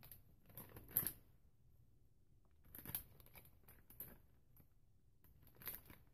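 Faint crinkling of a clear plastic piping bag being handled and filled with whipped candle wax, in a few short bursts.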